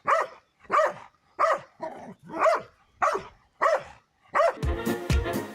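A dog barking over and over, about two barks a second. Near the end, music with a steady beat comes in.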